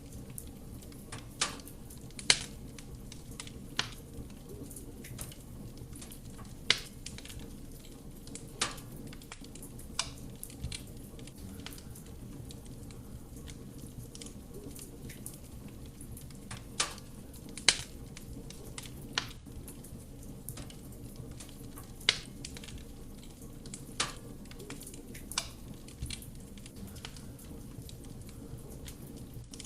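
Wood fire burning in a fireplace: a steady low rumble of flame with sharp, irregular crackles and pops of the burning logs, a dozen or so loud ones spread through.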